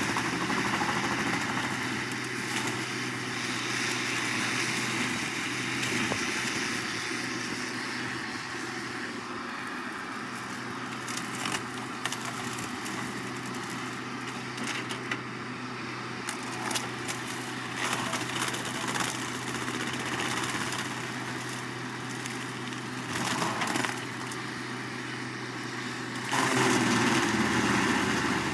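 An engine runs steadily, with scattered short cracks and knocks over it. The sound grows louder near the end.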